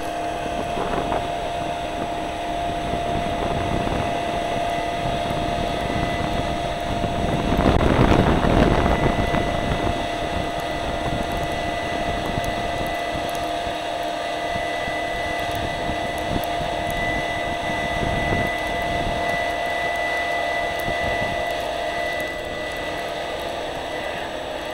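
Airport runway engine noise: a steady whine over a rumbling hiss, from airliner jet engines and a rotary snow-blower truck working the runway. It swells loudest about eight seconds in, and a second, higher whine joins around twelve seconds.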